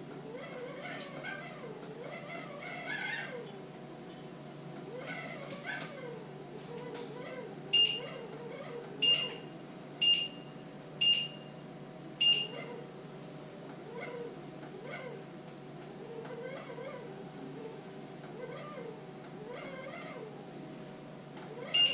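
A cat meowing over and over, each call rising and falling in pitch, about every one to two seconds. The loudest sounds are five short electronic beeps about a second apart a third of the way in, and one more near the end.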